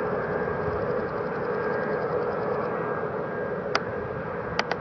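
Jet engines of an Airbus A380-861, its four Engine Alliance GP7200 turbofans, running as the airliner moves along the runway: a steady noise with a held whining tone. Three sharp clicks near the end.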